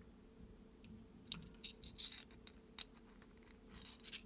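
Small metal clicks and clinks of an Atorn quarter-inch drive sliding T-bar being handled and fitted onto an extension bar. The clicks are faint and scattered, starting about a second in.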